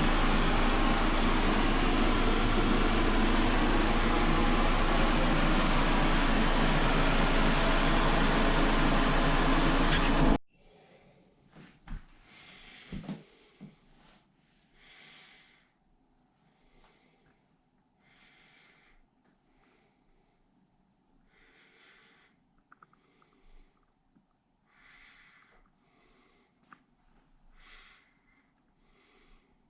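A loud, steady fan-like rushing noise that cuts off abruptly about ten seconds in. It is followed by a quiet room with faint breaths close to the microphone every second or two.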